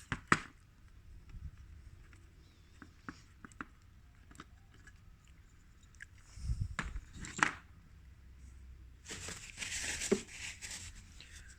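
Hands handling a CD player's disc mechanism: sharp clicks just after the start and again about seven seconds in, with light knocks between, then a crinkling rustle lasting about two seconds near the end.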